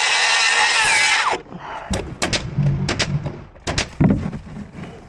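A loud, noisy power tool running, which winds down with a falling pitch just over a second in. It is followed by about eight sharp knocks and bangs of framing work.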